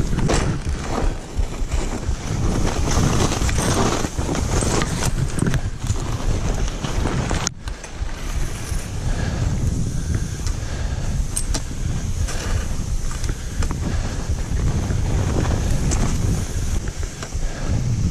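Wind buffeting the camera microphone and skis running through deep powder snow on a fast downhill ski run, a loud steady rush with scattered knocks.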